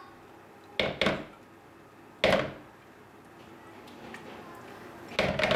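A few sharp kitchen knocks, about a second in, a strong one a little over two seconds in, and more near the end, as sour cream is spooned from its tub into a plastic mixing bowl. The knocks come from the spoon and tub against the bowl and the wooden table.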